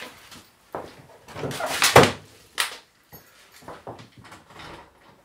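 A run of knocks and clatters, loudest about two seconds in, from a car door being opened and shut and someone moving about the car to switch the ignition on.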